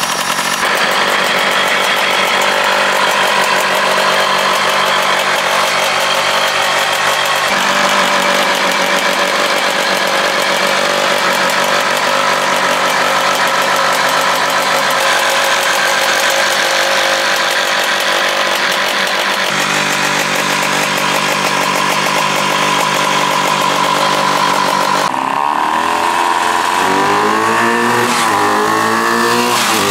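Two-stroke engine of a homemade toy tractor running on a test drive, holding a steady pitch and not revving out: it is making almost no power, which the builder puts down to an exhaust pipe made too short. In the last few seconds the engine pitch rises and falls repeatedly as it is revved and driven away.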